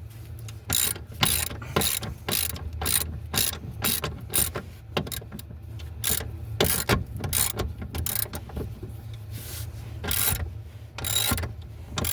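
Socket ratchet clicking in quick runs of strokes as a bolt is worked, over a low steady hum.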